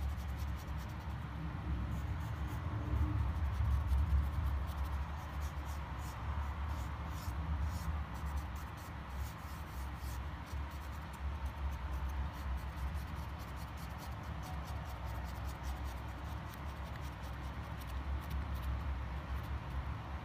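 A paint marker's tip scratching and dabbing on a rough stone, as faint irregular ticks over a low steady rumble.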